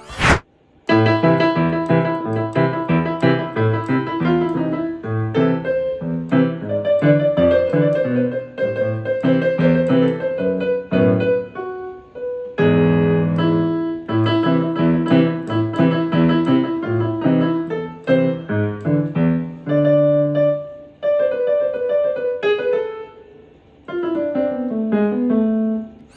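Yamaha PSR-I500 keyboard in a piano voice playing a tune, a melody over lower bass notes, starting about a second in, with brief breaks and ending in a falling run of notes.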